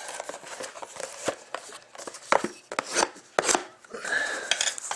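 Clear plastic shrink-wrap being torn open and stripped off a cardboard box of hockey cards: a run of irregular sharp ticks and scratches.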